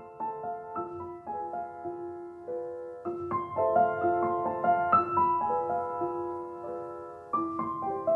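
Gentle solo piano music, with notes and chords struck one after another and left to ring. It grows louder about three seconds in and again near the end.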